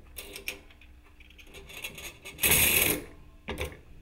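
Metal clicks and rattles of an AR-15 buffer and its coil buffer spring being handled after being drawn out of the buffer tube, with a louder half-second metallic jangle about two and a half seconds in and a short click near the end.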